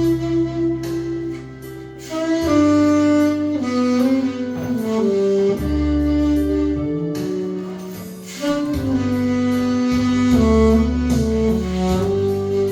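Slow instrumental music: a lead melody in long held notes, stepping up and down, over a backing track with a sustained bass line.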